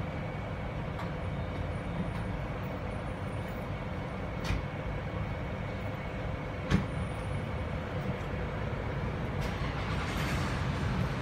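Steady low rumble and hum at a gas pump, with a faint steady whine, and two sharp clicks about four and a half and just under seven seconds in.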